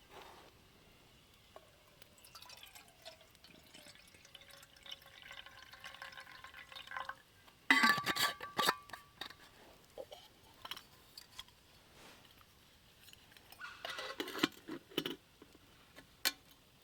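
Camp cookware being handled with liquid: a faint tone that slides down and then holds, then a loud clatter of clinks with a brief ring about halfway through, and another run of clinks near the end.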